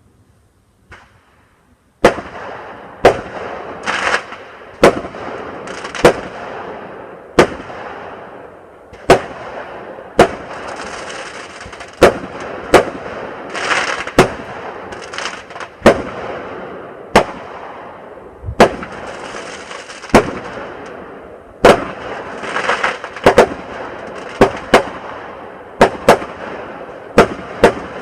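Fireworks going off. After a faint pop, sharp bangs start about two seconds in and keep coming about once a second, some in quick clusters, with crackling hiss between them.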